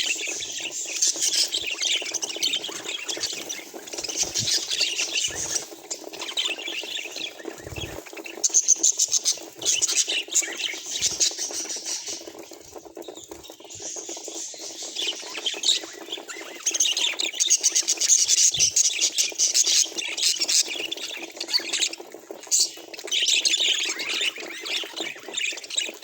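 Budgerigars chattering and chirping in bouts of rapid, high warbling, with a quieter lull about halfway through.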